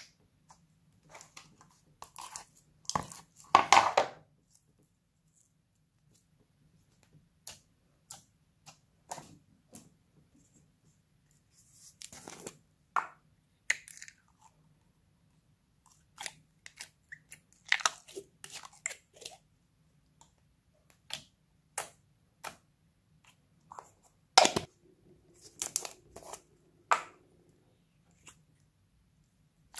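Glossy slime being squeezed, stretched and tipped from a glass jar by hand: irregular wet, sticky clicks and squelching pops, louder in clusters a few seconds in and again later on.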